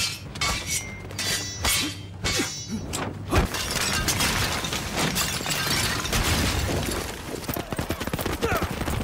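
Film fight sound effects: sharp hits and thuds, then a few seconds of dense crashing, shattering noise, and from about two-thirds in the rapid drumming of galloping horses' hooves.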